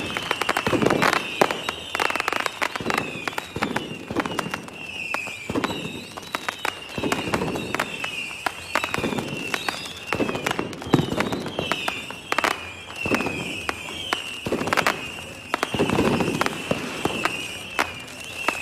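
Fireworks going off: a run of sharp bangs and crackles, with deeper booms every second or two, over a high wavering whistle.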